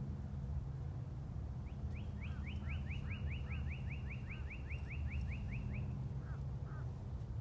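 A bird trilling: a rapid run of short downward-sliding notes, about four or five a second, lasting about four seconds. A steady low rumble runs underneath.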